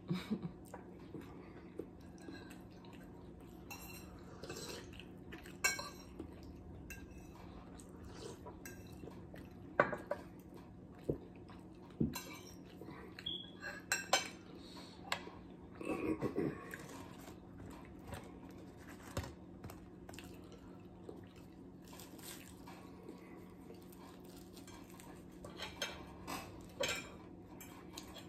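Forks clinking and scraping against plates now and then, with a few louder taps, over a steady low hum.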